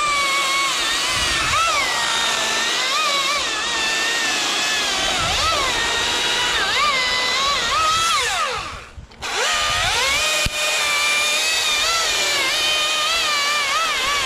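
Husqvarna T540i XP battery-powered top-handle chainsaw cutting an open face notch, its electric motor whine dipping and recovering in pitch as the chain loads up in the wood. About nine seconds in the trigger is let off and the whine falls away, then the saw spins back up and carries on cutting.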